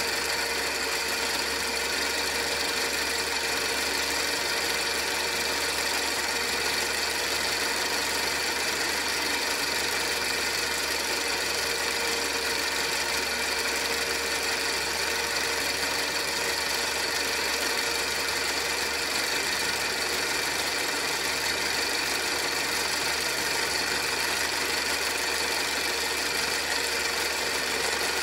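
Soviet Luch-2 8mm film projector running steadily: its motor and film-advance mechanism make an even, unbroken mechanical whirr with a few steady tones in it.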